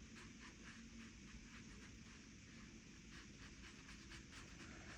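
Faint, soft strokes of a paintbrush on sketchbook paper, a quick irregular series of light brushing sounds.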